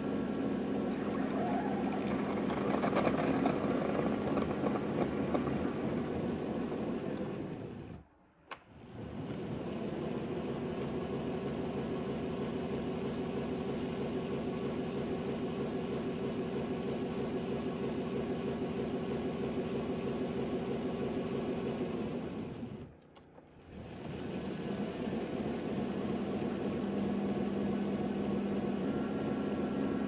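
Narwal Freo robot mop washing its mop pads in its base station: a steady mechanical hum from the motors. The hum stops briefly about eight seconds in and again at about 23 seconds, then starts up again.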